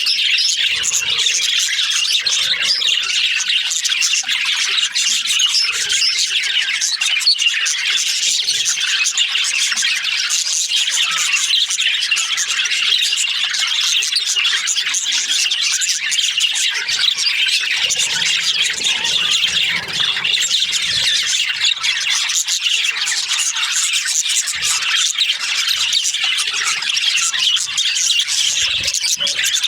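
Budgerigars chattering and chirping continuously, a dense unbroken mix of high, scratchy squeaks and warbles from several birds at once.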